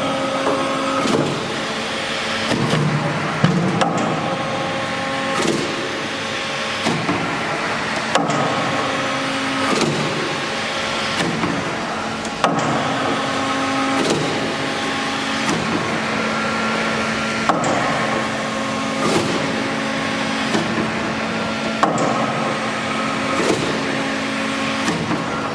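FICEP P803A CNC plate punching machine cycling through a program: a sharp punch strike about every one and a half seconds, with a steady machine hum and a whine of the positioning drives starting and stopping between strikes.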